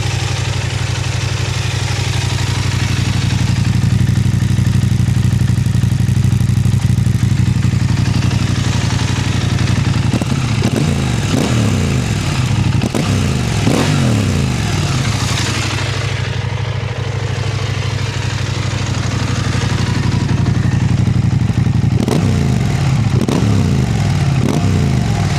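KTM 890 Adventure's parallel-twin engine running through a Black Widow hexagonal stainless-steel slip-on exhaust with the standard catalytic converter. It holds a steady note for about ten seconds, then the revs rise quickly several times in a row, and again near the end.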